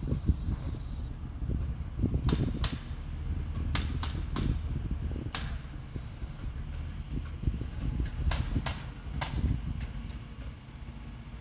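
A series of about nine sharp cracks at irregular spacing, some in quick pairs, over a steady low rumble.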